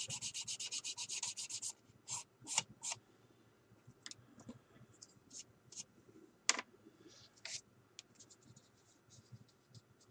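A sanding stick rubbed quickly back and forth over a plastic model car body, about eight strokes a second, smoothing a filled area; the sanding stops a little under two seconds in. After that come a few single scrapes and light clicks and taps as the body is handled.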